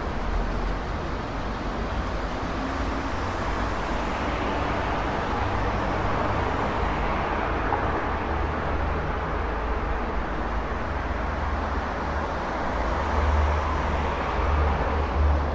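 Busy city road traffic: a continuous wash of passing cars and heavier vehicles with a deep engine and tyre rumble, swelling louder a couple of times near the end as nearer vehicles pass.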